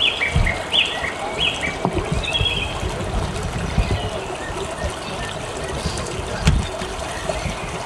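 Crowd murmur in stadium stands, with low bumps on the microphone and a few short high chirps in the first two seconds. There is one sharp knock about six and a half seconds in.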